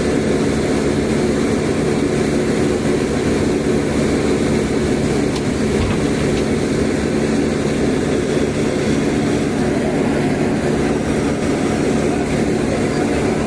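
Excavator's diesel engine running steadily under load, a continuous drone.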